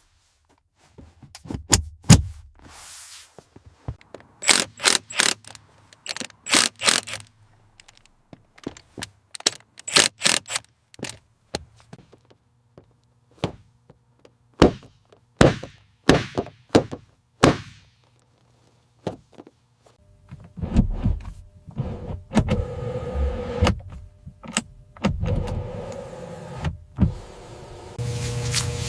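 An irregular series of sharp knocks and clicks, some in quick clusters of three or four, with short silent gaps. In the last third they become denser and noisier, over a faint steady tone.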